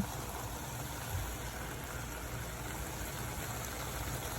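A pot of chicken and vegetable curry cooking on the stove: a steady, even hiss with a low hum underneath, no separate knocks or clatters.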